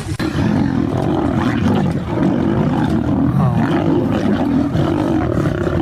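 Continuous loud vocal sounds from a large animal, with a wavering pitch.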